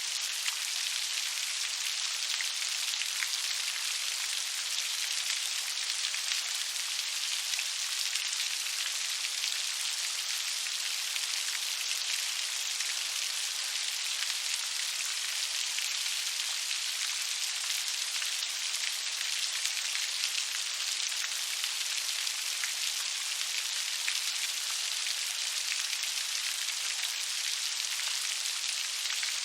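Steady rain, a constant even hiss of many fine drops pattering without let-up.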